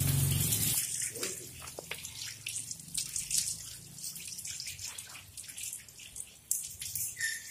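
Water from a garden hose spattering irregularly over a dog's wet coat and onto wet paving, loudest in the first second.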